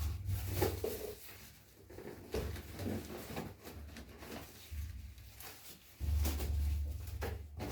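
A cardboard box being opened and its packing handled: scattered rustling, scraping and small knocks. A steady low hum comes in about six seconds in.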